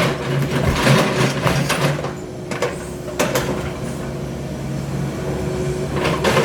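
Engine of demolition machinery running steadily, with occasional knocks and clatter.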